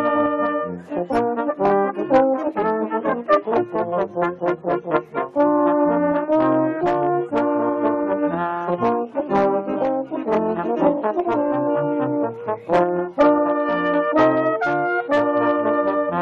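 Pep band brass section playing a rhythmic tune, trombones prominent, with short punchy notes and held chords.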